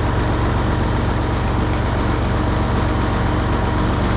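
A vehicle engine running steadily at a constant low speed.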